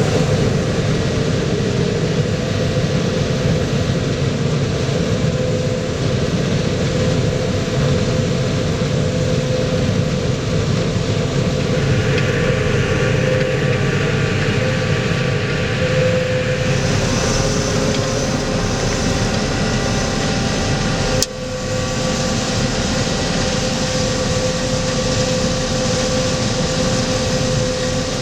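Heavy farm machinery's diesel engine running steadily at working load, with a steady whine over the engine noise. The sound breaks off briefly about two-thirds of the way through and goes on unchanged.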